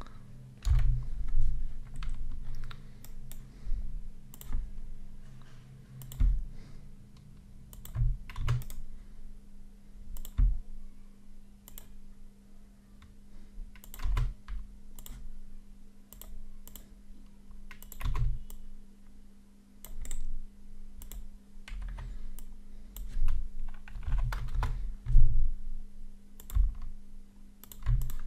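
Computer keyboard keystrokes and mouse clicks coming irregularly, several with a dull thump, over a steady low hum.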